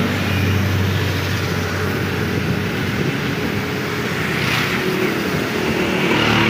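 Compressed-air paint spray gun hissing steadily as paint is sprayed onto a metal dog cage, with a low hum underneath during the first couple of seconds.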